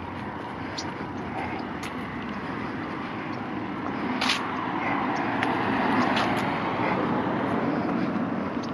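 Road traffic: a passing car's tyre and engine noise swells to a peak about six seconds in, then eases.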